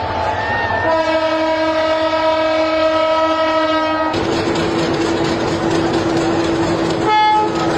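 Diesel locomotive horn sounding one long, steady blast from about a second in. After that, train running noise under a steady tone, with a short horn toot near the end.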